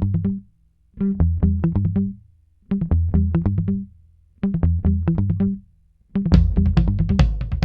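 Intro music: a short plucked-string riff with bass, repeated four times with brief pauses between, then continuing without pause as drums join about six seconds in.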